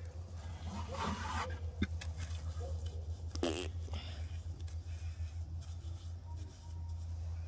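Wet mortar squishing and scraping as a bare hand packs it into the joints between stones, over a steady low hum. There is a brief louder sound about three and a half seconds in.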